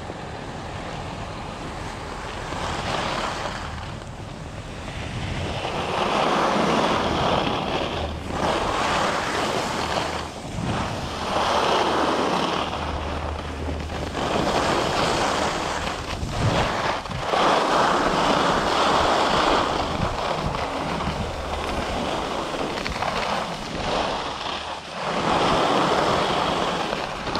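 Skis sliding and scraping over groomed snow, swelling and fading in several long surges, with wind noise on the microphone.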